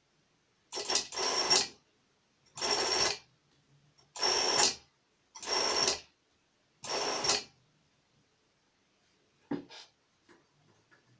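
A 5/3 solenoid valve switching and venting compressed air: five hissing bursts, each under a second, about one and a half seconds apart. A single short click follows about two seconds later.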